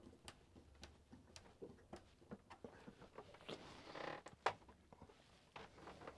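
Faint scattered clicks and rustling of hands handling a VHF radio set and its fixings as it is held against its panel mount, with one sharper click about four and a half seconds in.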